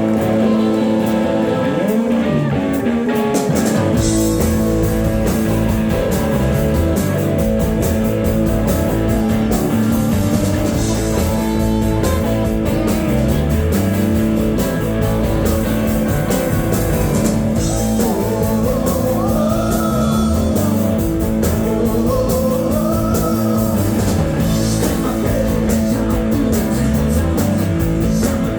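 Live rock band playing with bagpipes: a steady bagpipe drone runs under the music, and drums and bass come in about four seconds in.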